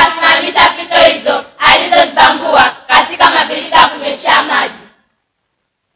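A group of children singing together in unison, cutting off suddenly about five seconds in.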